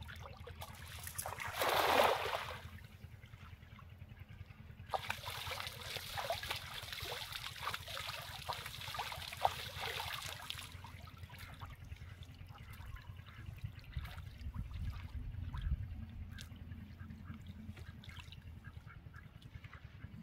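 A hand-thrown cast net lands on shallow pond water with one sharp splash about two seconds in. From about five to ten seconds it is hauled back through the water, with continuous splashing and sloshing full of small slaps. A low rumble follows briefly later on.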